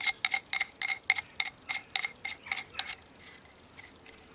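Cover being screwed by hand onto the end of a Hatsan AT44-10 PCP air rifle's air cylinder, clicking evenly about five times a second as it turns. The clicking stops about three seconds in.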